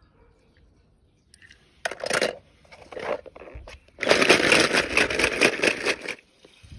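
Toy cars clattering against each other in a plastic basin: two short rattles, then a dense run of knocks and clicks for about two seconds.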